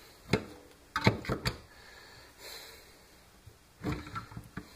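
A hot glue gun knocking and clattering against its homemade stand as it is slid in and handled: a single knock, a quick cluster of knocks about a second in, and a few more near the end.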